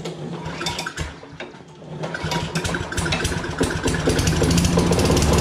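Walk-behind lawnmower engine being pull-started after a prime of carb cleaner. It fires unevenly at first, catches about two seconds in, and runs, growing louder and steadier.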